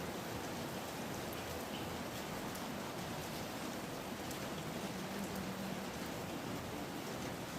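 Pressure cooker on the stove giving a steady hiss with faint crackles.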